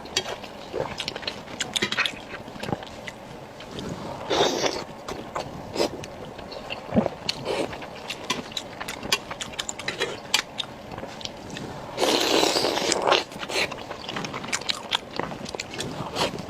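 Close-miked mukbang eating sounds: wet chewing and lip-smacking of soft pig brain in red chili oil, a steady run of small clicks and smacks. Two longer, louder bursts stand out, about four seconds in and about twelve seconds in.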